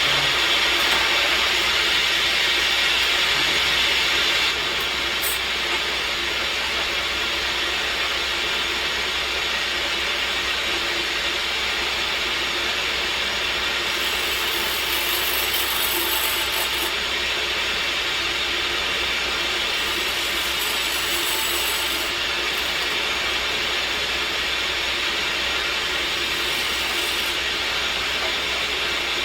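A woodworking machine running steadily with a dense, even rattling as it works teak wood. It drops a little in level about four seconds in.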